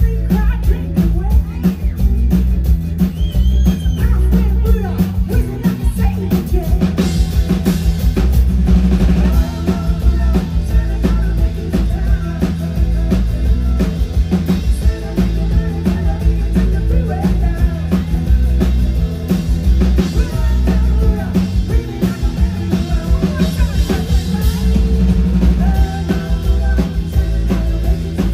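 Live pop-rock band playing, with drum kit, bass and guitar and a voice singing over them.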